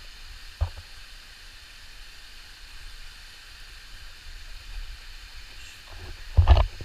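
Steady rush of a hot-spring stream running over rock, with a dull thump about half a second in and a louder double thump near the end.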